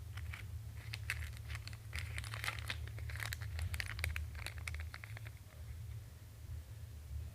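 Crinkling and rustling of something being handled: a dense run of small crackles that stops about five seconds in, over a steady low hum.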